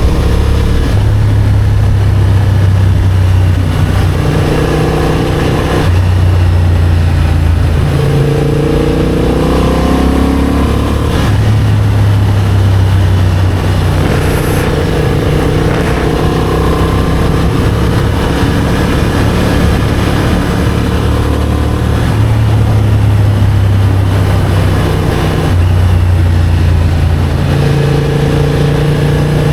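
Motorcycle engine running while riding, its pitch stepping up and down every few seconds as the throttle and gears change, with a rising rev about a third of the way in. A steady rush of noise runs underneath.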